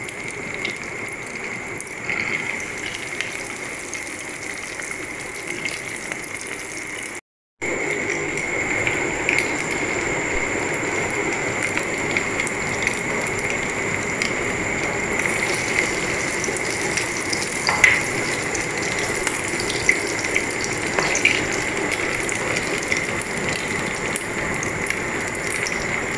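Hot oil sizzling and crackling as breaded rice-and-chicken rolls deep-fry in a pan, a steady hiss scattered with small pops. It cuts out briefly about seven seconds in and resumes slightly louder.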